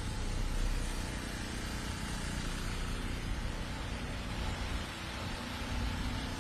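Car traffic moving slowly along a flooded street: engines running and tyres swishing through standing floodwater, a steady wash of noise.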